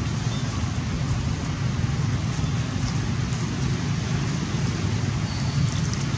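Steady outdoor background noise: a low rumble under an even hiss.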